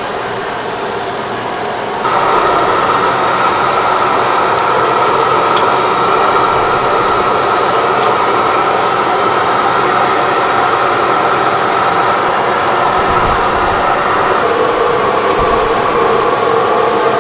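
Steady rushing roar of the fire heating a large stockpot of steaming water while a suckling pig is dipped in it. It starts abruptly about two seconds in and cuts off at the end. Before that there is only a softer room hum.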